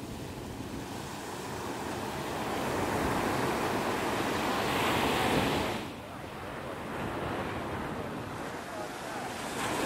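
Ocean surf washing up the beach. A wave's wash swells over the first five seconds, falls away about six seconds in, and the next one builds toward the end.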